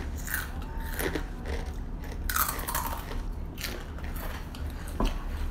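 Takis rolled tortilla chips being bitten and chewed, with irregular crisp crunches.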